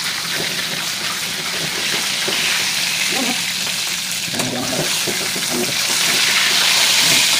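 Whole tilapia sizzling in hot oil in a steel wok, a steady frying hiss that grows a little louder near the end.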